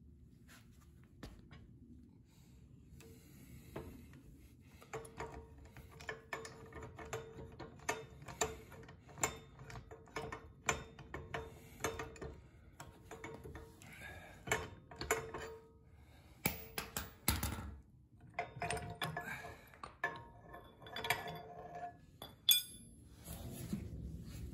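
Steel tools and axle parts clinking and knocking during ball joint work on a Dana 30 front axle: a long run of sharp metallic clicks, some ringing briefly, with a dense clatter about two-thirds through and the sharpest knock near the end.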